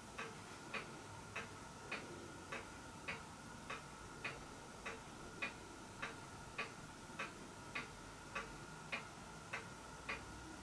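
A clock ticking steadily and quietly, a little under two ticks a second, over a faint steady high hum.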